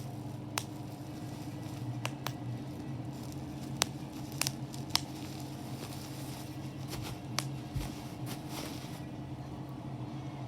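Bubbles being popped one at a time: about ten sharp, irregularly spaced pops over a steady low hum.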